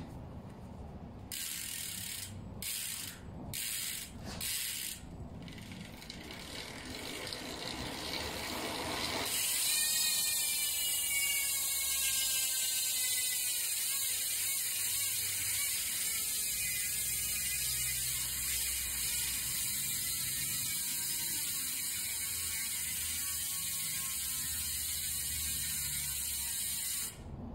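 Dartmoor Reel Pro V2 rear hub ratcheting. First come short bursts of pawl clicks as the wheel is turned by hand. From about nine seconds the spun rear wheel freewheels with a loud, continuous ratchet buzz whose pitch slowly falls as the wheel slows, and the buzz stops abruptly near the end.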